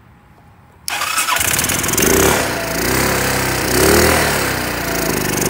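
Honda 250 four-wheeler engine catching about a second in, after WD-40 has been sprayed into its intake, then running loudly with its speed rising and falling twice. The crankcase holds dish soap in place of engine oil, and the engine is smoking.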